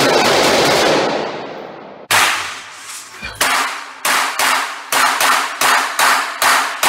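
Gunshots echoing in an indoor shooting range. A loud steady rush fades out over the first two seconds. Then comes a single shot, another a little over a second later, and then a quick string of shots at about two to three a second.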